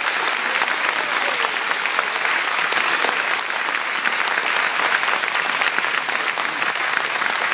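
An audience applauding steadily at the close of an acceptance speech, many hands clapping at once.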